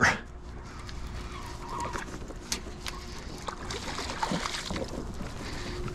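Scattered light clicks and knocks over a low steady rumble: rod, reel and kayak handling noise while a hooked bass is fought.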